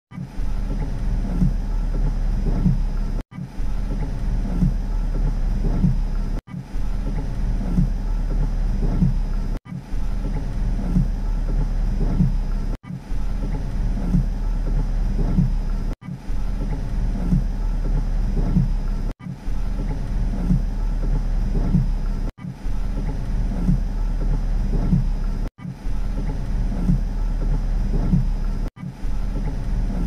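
Rain on a car, heard from inside the cabin as a dense, low rumble. The same stretch of about three seconds repeats over and over, each repeat broken by a brief dropout.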